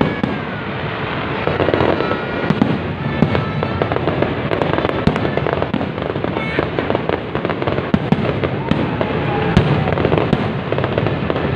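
Aerial firework shells bursting in quick succession: a dense, continuous run of sharp bangs and crackles.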